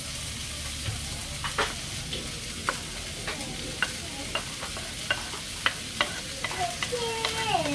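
Fishcake strips and sliced onion sizzling in a hot frying pan while a wooden spatula stirs them, with irregular clicks of the wood against the pan.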